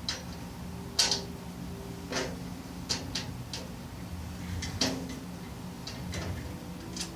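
Scattered metal clinks and clanks, about six in all, from the steel rails and fasteners of a tool cart being fitted together by hand, a few leaving a short ringing tone.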